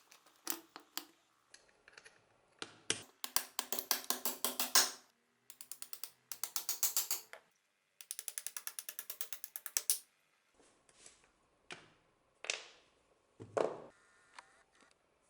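Metal ratchet clicking in three quick runs of about two seconds each, eight to ten clicks a second, between scattered single metallic clicks and knocks as parts are handled. A sharper knock comes near the end.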